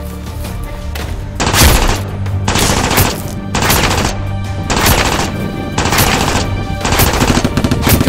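Bursts of rapid machine-gun fire, a dubbed gunfire sound effect, about six short volleys roughly a second apart beginning about a second and a half in, over background music.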